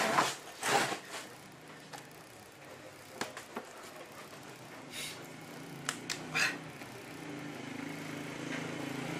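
Rustling and a few knocks and clicks as a person settles in close to the camera, then a low steady engine hum that grows louder over the last couple of seconds.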